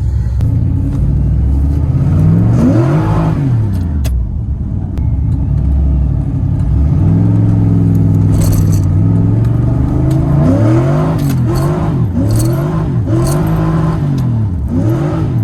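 LS-swapped V8 engine in a Pontiac Fiero, fed by a Holley Sniper EFI throttle body, revving under acceleration. Its pitch rises and falls once a few seconds in, holds fairly steady for a while, then rises and falls several times in quick succession near the end.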